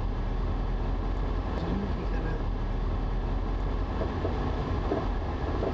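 Steady low rumble of a car driving along a city road: engine and tyre noise of the vehicle carrying the camera, with traffic around it.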